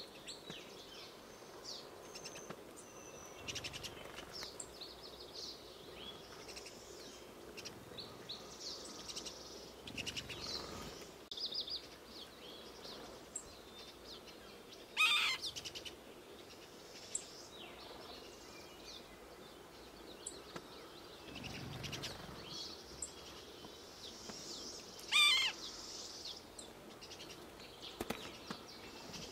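Small wild songbirds chirping and calling on and off. About halfway through and again near the end there is a louder, brief run of rapid clicks.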